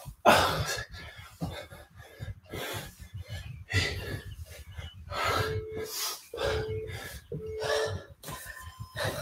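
A man breathing hard from exertion during kettlebell squats: a string of sharp, noisy inhales and forceful exhales, roughly one breath per rep. The loudest is a sharp gasp just after the start.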